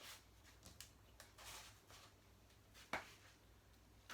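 Near silence: room tone with faint rustles and one sharp click about three seconds in.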